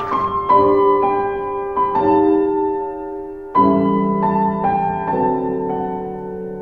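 Slow piano music: chords and single notes struck every second or so and left to ring out.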